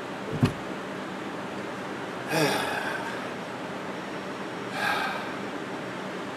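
A man breathing out hard with effort while lifting 20-pound dumbbells: two breaths about two and a half seconds apart, the first with a slight grunt. A sharp knock comes about half a second in.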